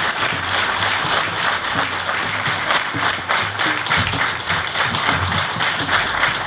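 Audience applauding steadily, with music underneath.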